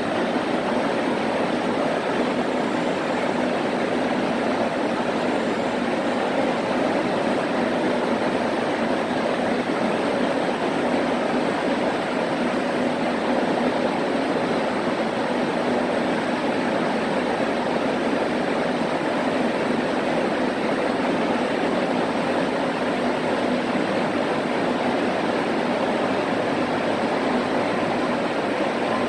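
ITX-Cheongchun electric train standing at the platform, its onboard equipment giving a steady, even hum with a faint held tone.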